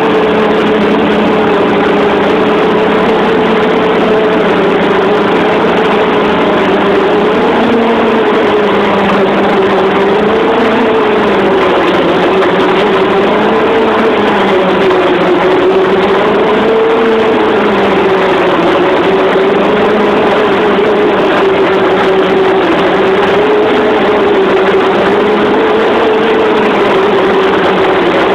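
A fishing workboat's inboard engine running steadily under way: a loud, unbroken drone with a tone that slowly wavers up and down in pitch.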